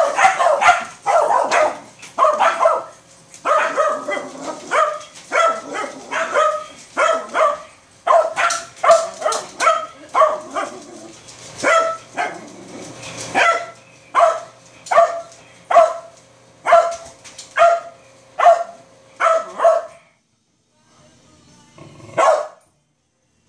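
Dog barking repeatedly, about one to two barks a second, at a kitchen garbage compactor running with a steady hum. The compactor stops suddenly about twenty seconds in, and the dog gives one more bark after a short lull.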